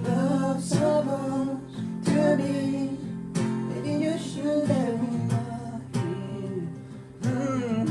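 Acoustic guitar strummed in a slow, steady accompaniment, with a singing voice bending its pitch over the chords at times.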